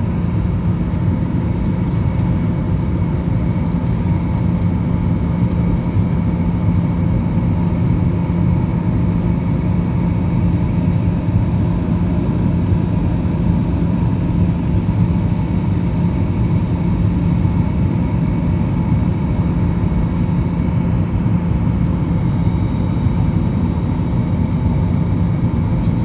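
Steady airliner cabin noise at a window seat: the drone of the engines and rushing air, with a low even hum underneath.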